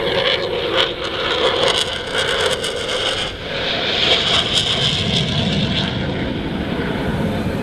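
US Air Force Thunderbirds F-16 single-engine jet flying past low overhead, a loud continuous jet roar that swells about halfway through.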